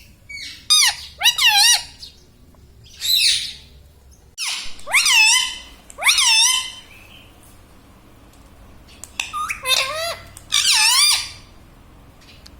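Indian ringneck parrot calling: about five bursts of high-pitched calls whose pitch wobbles quickly up and down, with short pauses between them.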